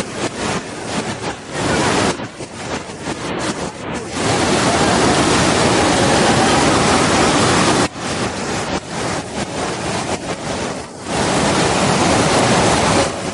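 Waterfall's water rushing: a loud, dense rush that comes and goes unevenly, holding steady for a few seconds after about four seconds in and again near the end.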